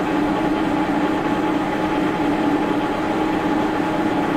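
Old milling machine running steadily, its spindle turning a small cutter: a constant mechanical hum with two steady tones held throughout.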